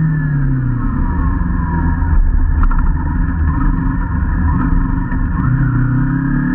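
Motor vehicle engine running under way, with a steady rumble of wind and road noise. The engine pitch drops during the first second, then climbs again from about five seconds in as it speeds up.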